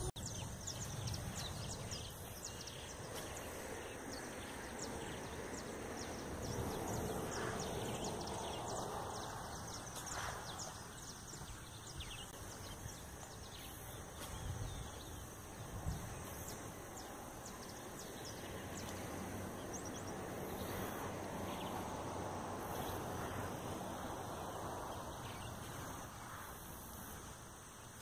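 Quiet outdoor ambience: a steady low rumble with faint, scattered high chirps throughout, and a single soft thump about sixteen seconds in.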